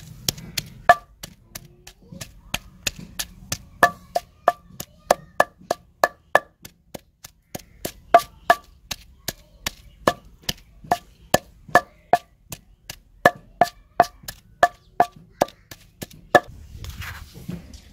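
Long wooden pestle pounding garlic and ginger with dry spices in a heavy stone mortar: steady strikes about three a second, many with a short ringing note. The pounding stops shortly before the end.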